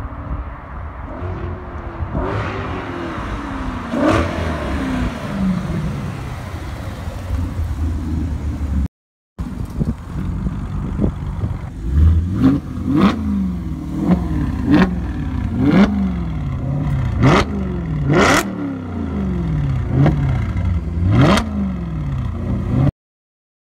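Audi RS4 Avant's 4.2-litre V8 through an Armytrix cat-back exhaust: first the car accelerates up and past, its engine note rising and falling, then after a short break it is revved repeatedly while stationary, about nine quick blips that shoot up in pitch and fall away.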